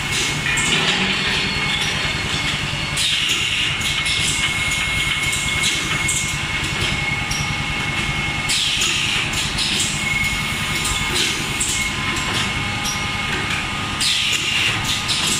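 Automatic three-cavity PET stretch blow moulding machine running, with a steady hum and mechanical clicking and clatter. Three times, about every five and a half seconds, there is a rush of air that falls in pitch as it dies away, typical of the blowing air being exhausted at the end of each moulding cycle.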